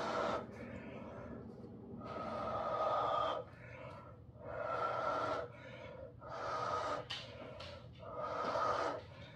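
A person blowing hard through the mouth onto wet acrylic paint in repeated breaths of about a second each, roughly every two seconds, with quieter gaps between. This is a by-mouth blowout that spreads a bloom pour and opens the cells of a double cell activator.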